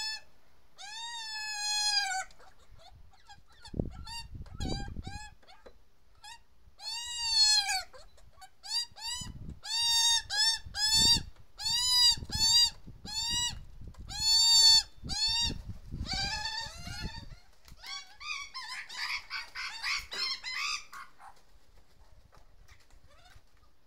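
Australian magpie fledglings giving loud, repeated begging calls: nasal, bleating squawks that rise and fall in pitch, often several in quick succession. Near the end the calls give way to a few seconds of rapid magpie warbling before it goes quiet.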